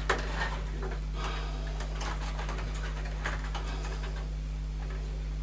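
Faint clicks and rustling of fingers pushing plastic wire connectors onto a gas boiler's electronic control board, over a steady low hum.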